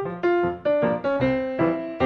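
Background music: a brisk tune of single struck notes that ring and fade, a new note every quarter to half second.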